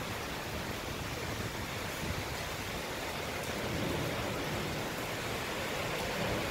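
Rain falling steadily, an even hiss with no letup.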